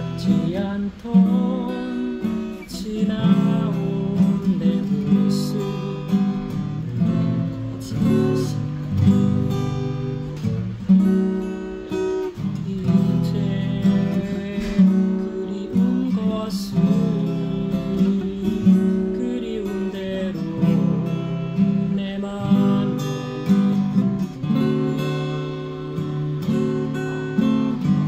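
Steel-string acoustic guitar played with the fingers, picking and strumming chords with a new note or chord every moment.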